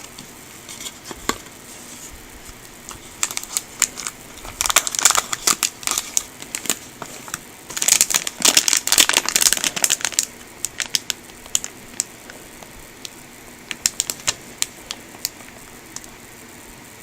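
Small cardboard model-kit box being opened and its bagged plastic runners handled: crinkling and crackling in two bursts, about four and eight seconds in, with scattered light clicks afterwards.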